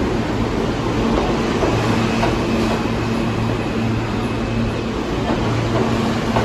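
R160 subway train running through an underground station: a steady rumble of wheels on track with a low electric hum that comes and goes.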